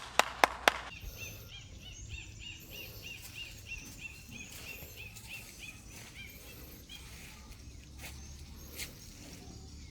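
A few quick hand claps at the very start, then a bird calling with short repeated chirps, about four a second, for several seconds over outdoor background noise.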